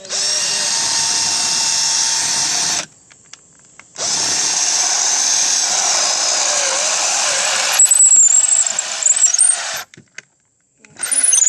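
Power drill boring a hole, running in two long bursts with a short pause between. It ends in a stretch of high-pitched squeaking as the bit cuts, before stopping.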